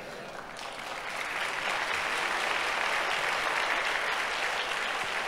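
Congregation applauding: many hands clapping, swelling in about a second in and then holding steady.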